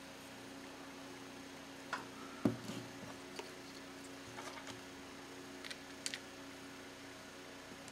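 Light plastic clicks and taps as accessory pieces are handled and pegged onto a plastic action figure: a scattered handful, the sharpest about two and a half seconds in, over a faint steady hum.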